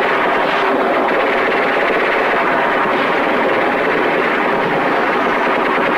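Battle sound from a war film's soundtrack: a loud, steady din with a fast pulsing texture throughout.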